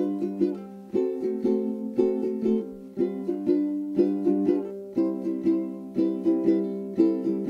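Background music with plucked string notes at a steady beat, about two a second.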